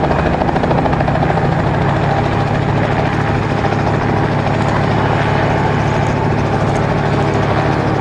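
Remote-controlled agricultural spray helicopter's engine and rotors running with a steady, even hum, the aircraft being brought in to land for an engine cool-down.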